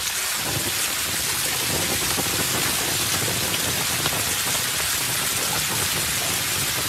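Water splashing and churning in a plastic paddling pool as a golden retriever paws at it: a dense, steady spatter.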